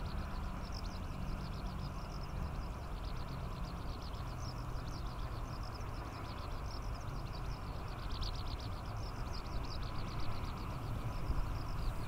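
Eurasian skylark singing in song flight: a long, unbroken stream of rapid high chirps and trills. A steady low rumble runs underneath.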